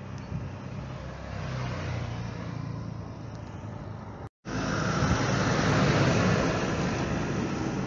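Boeing 737-500's jet engines running, heard from a distance as a steady roar with a low hum while the airliner rolls along the runway. The sound cuts out for an instant about four seconds in, then comes back louder.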